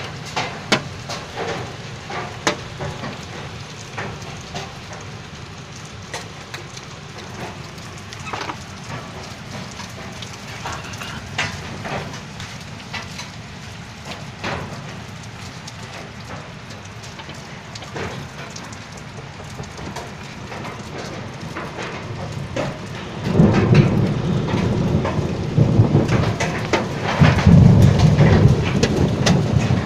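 Hailstones falling hard, with a steady patter broken by many sharp cracks as stones strike. About three-quarters of the way through the downpour turns much heavier and louder, with a deep rumbling under the impacts.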